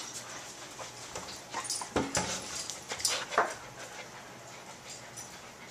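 A puppy whimpering and giving short yips while pushing through a plastic dog-door flap, with clacks and scrapes from the flap. The calls and knocks bunch up from about one and a half to three and a half seconds in.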